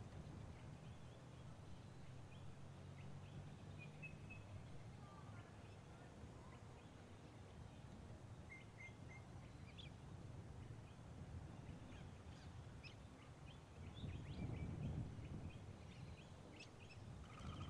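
Faint, scattered small bird chirps over a low background rumble that swells briefly toward the end.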